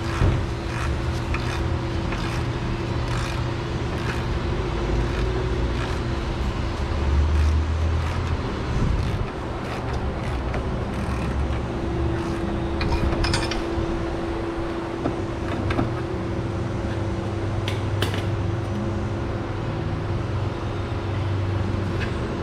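A steady mechanical hum holding one constant tone, with scattered light clicks and clinks of hand tools on metal while a suspension bolt is worked by hand.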